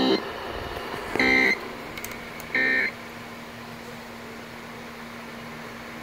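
Three short data bursts of the Emergency Alert System end-of-message code, a little over a second apart, played through a radio's speaker. Between and after them there is a steady radio hiss with a faint low hum.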